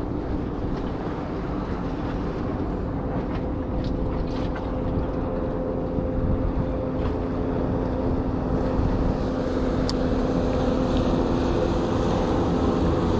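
Steady low engine drone, with wind buffeting the microphone.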